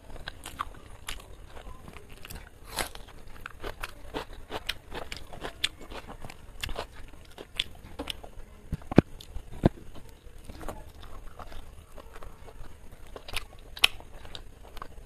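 Close-up eating sounds: wet chewing and biting into chicken biryani and a fried chicken leg piece, eaten by hand. Irregular small clicks and smacks throughout, with two louder sharp ones in the second half.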